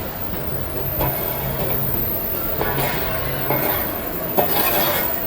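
Continuous drum carbonization furnace line running, giving a steady mechanical hum with several sharp knocks or clanks.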